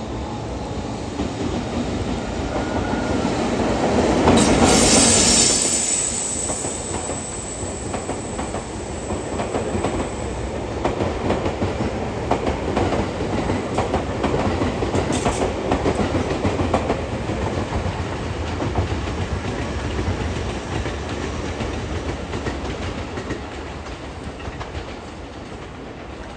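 An EF65 electric locomotive passing at speed, loudest about five seconds in, with a thin high whine for a few seconds after it. Then the steady clickety-clack of the towed, unpowered Toei 6500 series subway cars' wheels over the rail joints, slowly fading toward the end.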